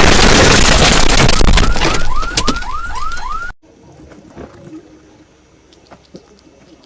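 Overdriven, distorted explosion sound effect: a wall of blast noise, with a quick run of short rising whoops near its end. It cuts off abruptly about three and a half seconds in, leaving only faint rustling and small clicks.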